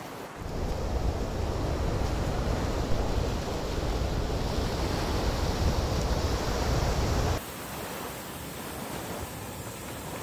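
Surf washing up on a sandy beach, mixed with wind buffeting the microphone in a heavy, uneven rumble. About seven seconds in it cuts off suddenly, leaving a quieter steady hiss.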